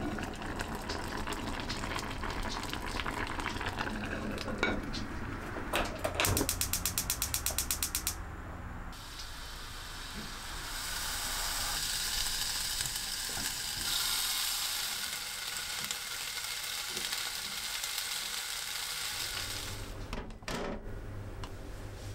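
A rapid run of clicks, about eight a second for two seconds, then a bacon-wrapped roll sizzling steadily in a small frying pan from about ten seconds in.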